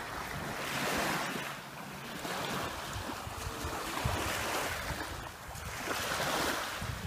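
Small sea waves lapping and washing onto a sandy beach. The hiss of the wash rises and falls every couple of seconds.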